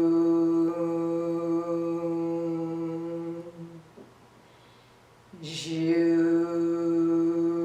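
A woman's voice chanting the liver healing sound "zhu" as a long, steady, humming tone. It breaks off for a quiet breath about four seconds in, then starts again with a hissing "zh" and is held.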